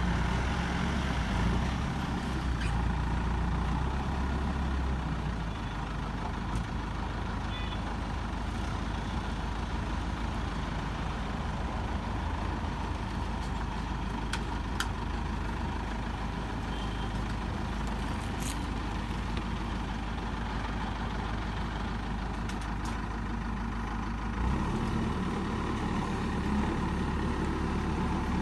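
Diesel engines of a backhoe loader and tractors running steadily. The low engine drone drops about five seconds in and grows stronger again near the end, with a few faint clicks.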